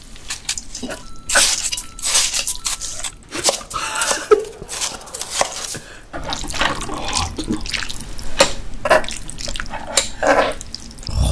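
Close, wet, sticky sounds of sauce-coated pasta being lifted and stirred with chopsticks, with shaved ice being spooned out of a metal bowl onto pasta; a run of irregular small clicks and slurpy crackles.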